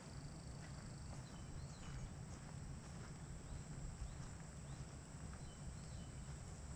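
Outdoor ambience of footsteps on a dirt path, with short high bird chirps scattered throughout and a low rumble of wind on the microphone.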